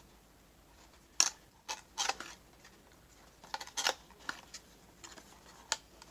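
Cardboard box sleeve and plastic blister packaging of a toy car being handled and slid apart: a string of short crackles and scrapes at irregular spacing, the loudest about a second in.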